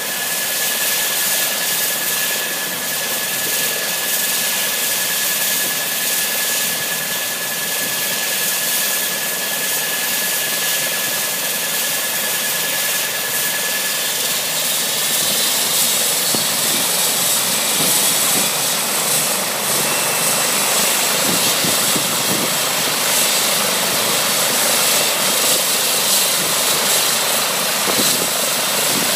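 Eurocopter EC135 helicopter starting up on the ground, its twin turbine engines whining as the main rotor spins up. A steady high whine in the first half gives way about halfway through to higher whines that rise slightly, and the sound grows gradually louder.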